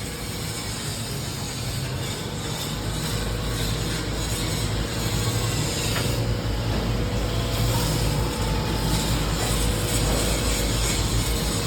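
Machinery running with a steady low hum under a dense mechanical noise, slowly growing louder over the first half.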